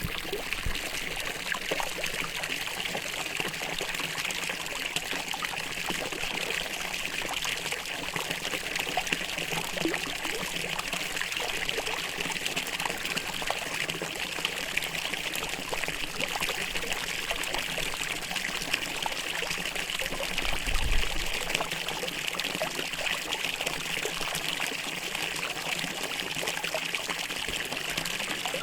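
Water from a fountain trickling and splashing steadily, with one brief low bump about three-quarters of the way through.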